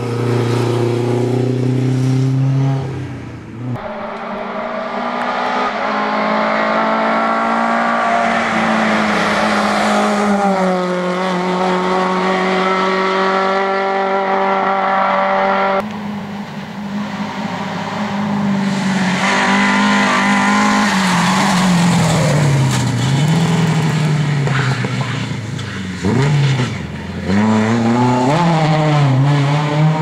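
Lada 2107 rally car's engine revving hard at racing speed, its pitch climbing through the gears, dropping at each shift and swooping up and down as the driver lifts and gets back on the throttle for corners. The sound jumps abruptly twice where separate passes are cut together.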